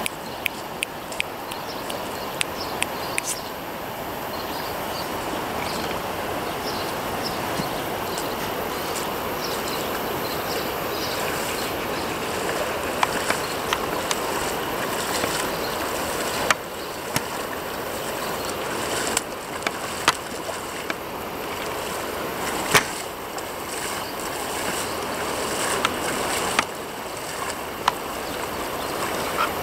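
Shallow river running steadily over gravel, with scattered sharp clicks and knocks.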